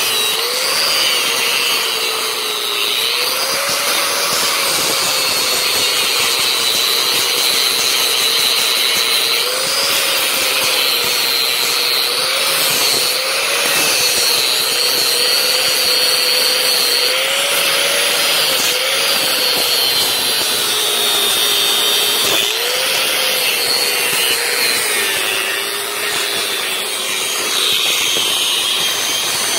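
Angle grinder running continuously, its disc grinding the remains of an old exhaust pipe out of a steel flange. The motor's whine dips and recovers again and again as the disc is pressed into the metal.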